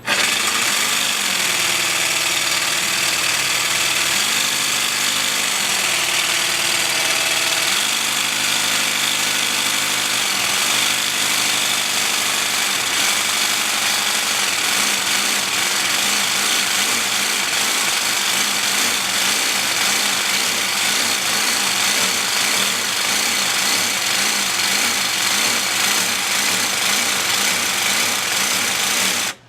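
Cordless Craftsman jigsaw with a Bosch T130DG diamond-grit blade grinding through wet ceramic tile, loud and continuous. Its motor pitch rises and falls through the first dozen seconds as the trigger is eased on and off, then holds steady until the saw stops suddenly at the end.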